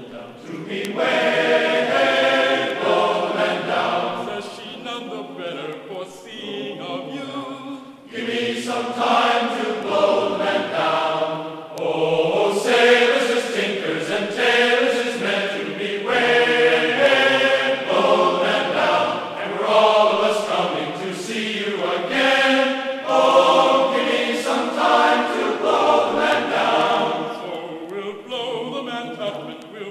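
Background music of a choir singing, with layered voices.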